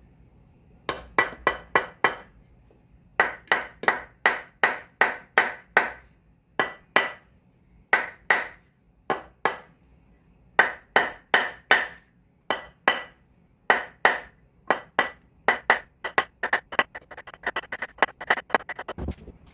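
Repeated sharp blows on the end of a new wooden axe handle, driving and seating a 4 lb Plumb axe head onto it. The blows come in runs of several at about three a second with short pauses, each with a short ring, and turn into lighter, quicker taps near the end.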